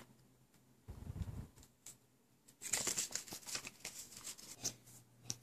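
Handling noise: a low dull bump about a second in, then a run of soft rustles and light clicks as a paper card insert and small plastic toys are handled on a wooden table.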